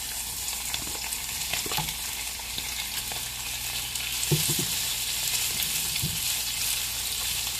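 Bacon sizzling in its own grease in a frying pan as raw shrimp are tipped in and stirred with a spoon, the sizzle growing louder from about halfway through, with a few soft knocks of the spoon against the pan.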